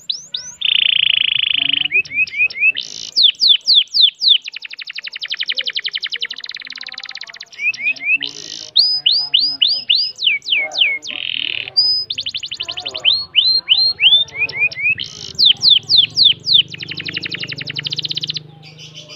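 Domestic canary singing continuously: long, very fast rolling trills alternating with runs of quick, steeply downward-sliding whistled notes, breaking off just before the end.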